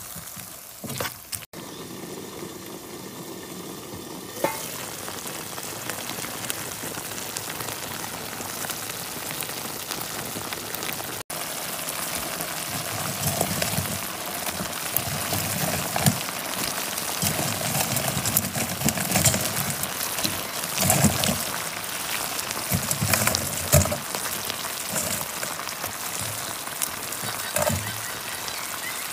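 Sweet and sour sauce with peppers and onions sizzling and bubbling in a skillet, stirred with a metal spoon. In the second half, pieces of fried fish are laid into the pan with a few soft knocks.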